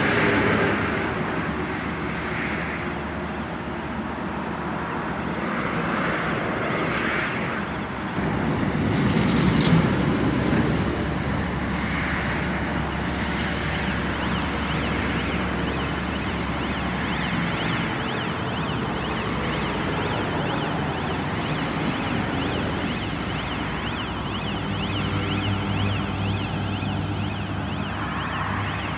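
Engine of a Cometto box-girder transporter running steadily as the machine moves. From about the middle on, a warbling warning alarm sounds over it.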